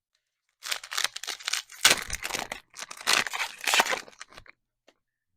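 Plastic trading-card pack wrapper being torn open and crinkled, a run of crackling rustles lasting about four seconds.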